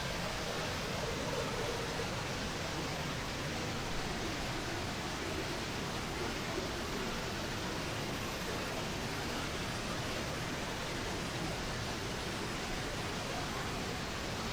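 Rushing water from a waterfall or river, a steady even roar.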